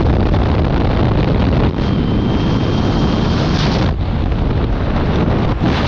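Loud rushing wind buffeting the microphone at the open door of a skydiving jump plane in flight, with the aircraft running underneath. A faint high whistle sounds for a second or so midway.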